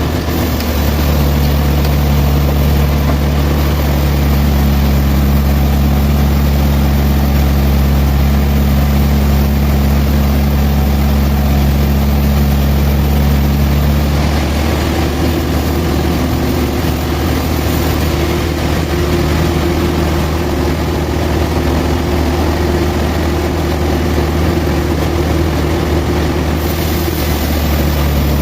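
Sawmill engine running steadily, its tone shifting about halfway through and again near the end.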